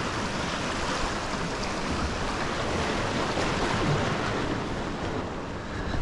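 Ocean surf washing steadily onto the beach, with wind on the microphone; the wash swells a little past the middle.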